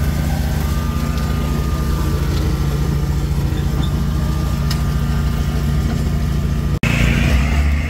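Steady engine drone of a side-by-side UTV towing a Swisher rough-cut brush mower, which has its own engine, through tall grass and weeds. Near the end the sound breaks off for an instant and comes back louder, with more hiss.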